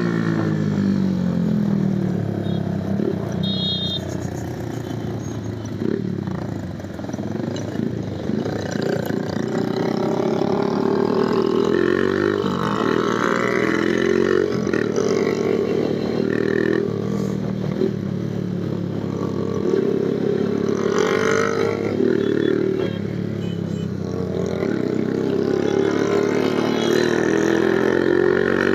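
Hi Speed Infinity 150cc motorcycle engine running under way, its pitch slowly rising and falling as it speeds up and eases off. It dips and quietens about six to eight seconds in.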